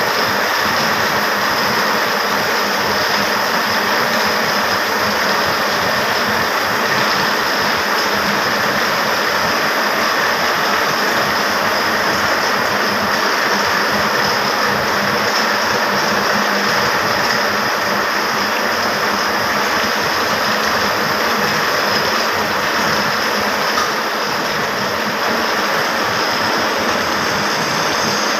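Textile mill machinery of a powerloom shed running: a steady, dense mechanical clatter with no pauses.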